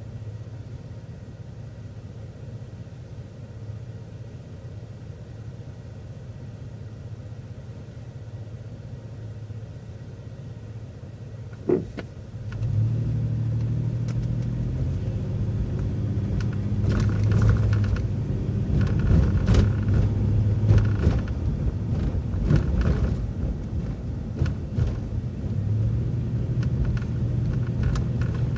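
City transit bus engine running low and steady, a sharp clunk about twelve seconds in, then the engine runs much louder as the bus pulls away and drives on, with rattles mixed in.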